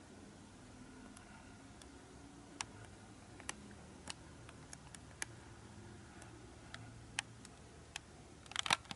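Faint, irregular small clicks, with a brief crinkle near the end, from the plastic sleeve pages of a trading-card binder being handled.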